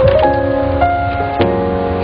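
Background soundtrack music: held chords that start at once and change a few times, over a steady low rumble.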